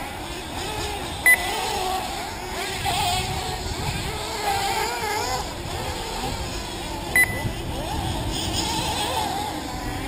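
Several 1/8-scale nitro buggy engines running at high revs, their pitch rising and falling as the cars race around the dirt track. Two short electronic beeps cut in, about a second in and again about seven seconds in.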